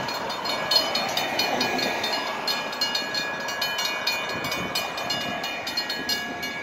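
Railroad grade-crossing warning bells clanging in a fast, even rhythm as the crossing gates come down, signalling an approaching NJ Transit train.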